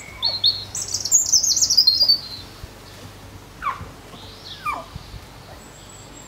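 Songbird chirping: a rapid, high, falling trill in the first couple of seconds, followed by three short downward-sliding calls about a second apart.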